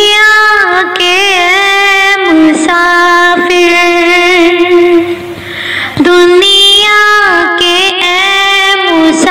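A high solo voice singing a devotional song in long held notes, bending and wavering through ornaments, with a brief breath-like dip about two-thirds of the way through.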